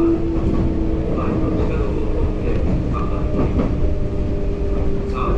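Kintetsu electric commuter train running, heard from inside the driver's cab: a steady rumble of wheels on rail with a whine that slowly drops in pitch, and a few clacks.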